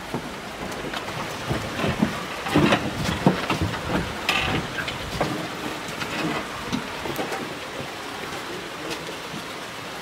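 Footsteps of several people crunching on a gravel and loose-rock path, irregular and closely spaced for about the first five seconds, then sparser, over a steady hiss.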